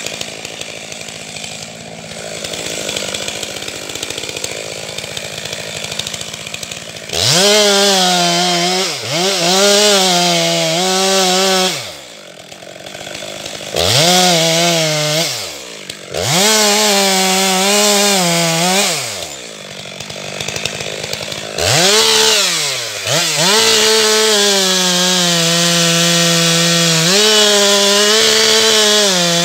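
Two-stroke chainsaw revving after a quieter start: several short full-throttle bursts that rise and fall, then held at high revs through the last several seconds, cutting wood.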